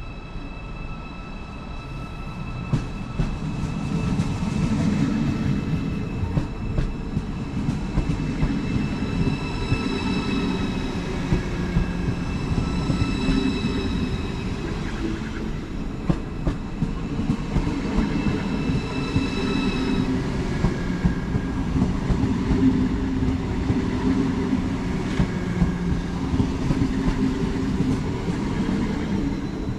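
ICE electric train rolling slowly past along the platform: a low rumble with regular clacks of the wheels over the rail joints, and a high whine of several steady tones that fades out about two-thirds of the way through.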